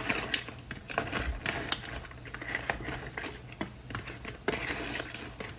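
A metal ladle stirring and turning boiled crabs in a large aluminium stockpot: irregular clicks and knocks of the utensil against the pot and the crab shells.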